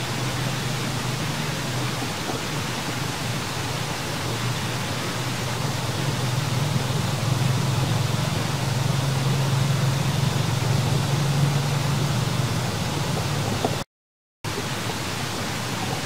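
Steady outdoor background hiss with a low steady hum under it, cut to dead silence for a moment near the end.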